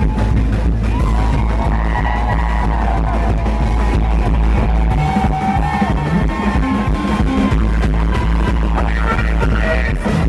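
Live band jamming with drummers: saxophone lines held over dense drumming, with sousaphone, keyboard and bass underneath.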